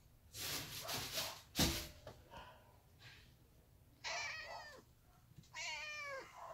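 A tortoiseshell cat meowing twice, two drawn-out meows about a second apart, the second falling in pitch, from a cat wanting to go out into the snow. Earlier there is a rustling noise and a single sharp thump, which is the loudest sound.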